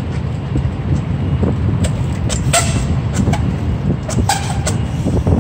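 Trials bike hopping on its rear wheel along a stone ledge: a run of sharp knocks and clicks from about two seconds in as the tyre lands and the bike is jerked about, some with a short ringing after. Under it, a steady low rumble of city traffic.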